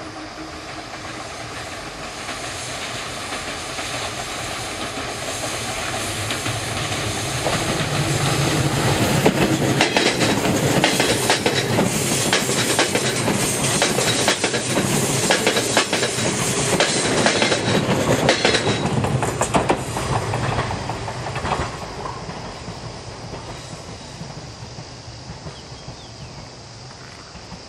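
JR 189 series electric train passing: its running noise builds as it nears, the wheels clatter over the rail joints in a quick clickety-clack as the cars go by, and the sound fades as the train draws away.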